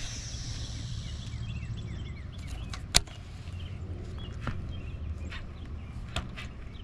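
Rod and reel being cast and retrieved: a high hiss of line fading at the start, then quick ticking and a few sharp clicks of the reel, the loudest about three seconds in, over a steady low rumble.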